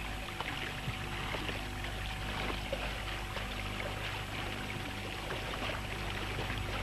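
A small 4 hp outboard motor running steadily, pushing the catamaran along, with water rushing along the hulls.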